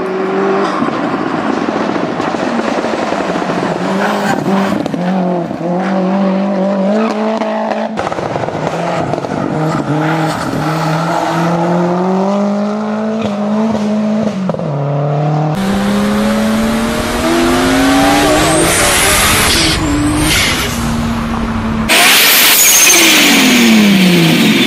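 A run of turbocharged cars' engines revving hard, their pitch climbing and dropping through gear changes, with blow-off valves venting on lift-off. The sound changes abruptly three times as one car gives way to the next, and near the end an engine revved in its bay is the loudest part.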